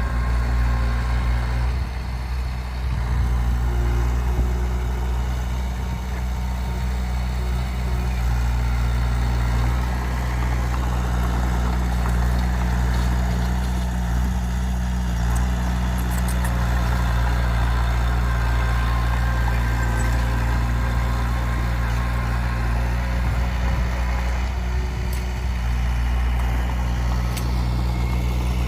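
Heavy diesel engine running steadily at an even speed, a constant low drone.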